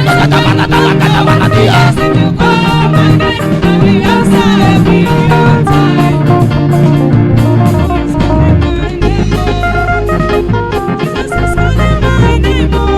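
Live worship band music, guitar and bass over a drum kit, playing an instrumental passage between sung lines.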